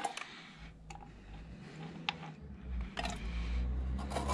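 Used engine oil draining from the 2CV's 425 cc engine into a tin: a low, steady pouring rumble that starts about half a second in and grows louder, with a few short, light clicks along the way.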